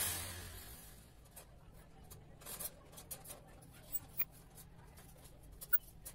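A hiss fading away in the first second, then faint scattered clicks and rubbing of a folding wire dog crate's metal panels being unfolded and set up.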